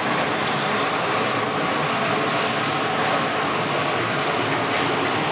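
Steady hiss of steam jetting into a steam room.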